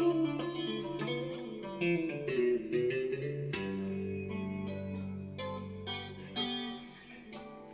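Fender Stratocaster electric guitar on a clean tone, playing a passage of tapped and arpeggiated notes over a low held note, then dying away near the end.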